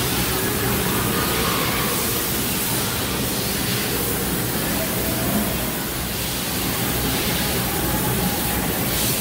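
Hwacheon Hi-Tech 450CL CNC lathe running without cutting, its spindle and drives giving a steady whirring hiss with faint humming tones.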